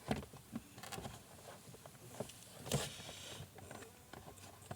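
Plastic spin-dryer basket being handled and seated in a small portable washing machine: scattered light plastic clicks and knocks, with a louder scraping rustle about three seconds in.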